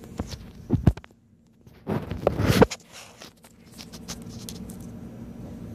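Two or three sharp knocks, then a short bout of rustling, scraping handling noise, followed by a steady low hum.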